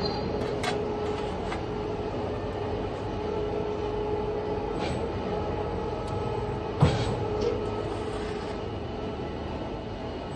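Full electric press brake running: a steady machine hum with a constant tone, a few sharp clicks, and one louder thump about seven seconds in.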